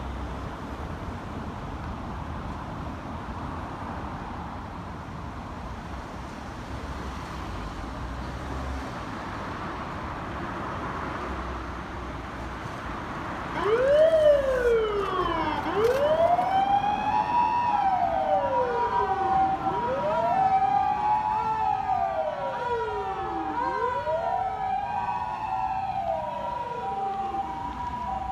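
Traffic noise at first; about halfway through a fire engine's remotely operated motor siren starts up, wailing in rising and falling cycles about every two seconds, with a steady tone held alongside.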